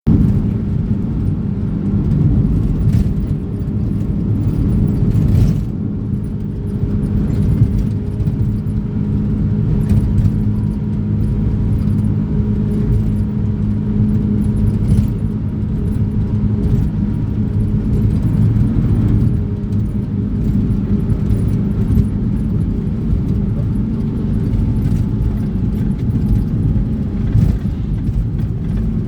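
A motor vehicle's engine running steadily with a low hum, and light clicks and rattles scattered throughout.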